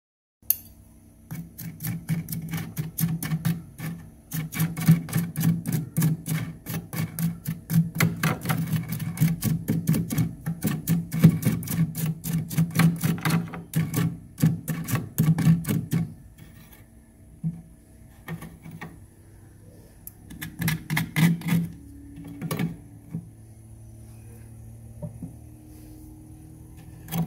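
A spoon scraping frost off a freezer wall in quick, sharp strokes, several a second, which stop about 16 seconds in. A few scattered strokes follow, then a short burst of scraping around 21 seconds.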